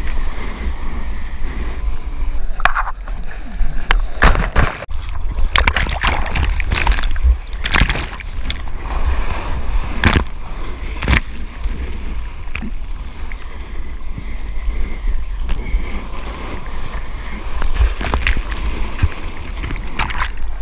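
Seawater splashing and rushing over a GoPro camera housing at board level while surfing, over a constant low rumble of water and wind buffeting the camera. Many sharp splashes come through, thickest from about four to eleven seconds in.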